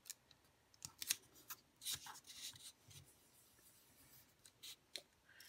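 Faint rustling, rubbing and light tapping of fingers pressing a paper sticker down onto a printed sheet and smoothing the paper flat. The loudest sound is a short click about a second in.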